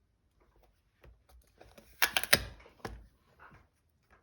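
Sharp clicks and taps from handling rubber-stamping supplies on a craft table, with a loud cluster of clicks about two seconds in and a single knock just after.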